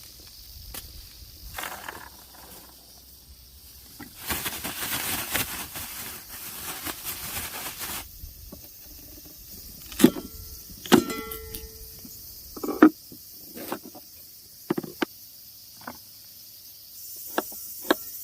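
About four seconds of steady hissing, then a series of sharp knocks and clanks. The loudest come at about ten and eleven seconds in, one of them ringing briefly.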